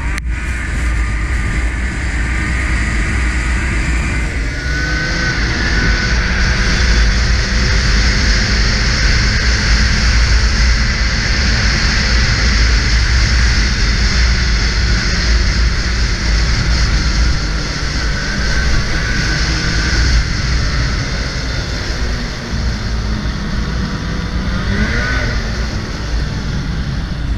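Snowmobile engine running steadily at trail speed, with heavy wind rumble on the microphone. A brighter hiss joins about four seconds in.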